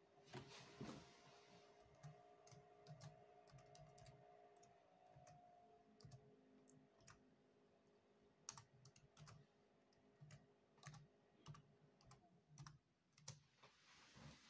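Faint keystrokes on a Dell Latitude E5410 laptop keyboard as a password is typed: irregular single clicks, some in quick runs, with short pauses between.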